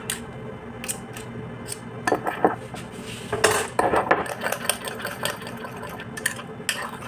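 A metal spoon stirs and scrapes a gritty coffee-and-sugar scrub in a small glass bowl, clinking against the glass over and over. It gets louder and busier around two seconds in and again around three and a half to four seconds in.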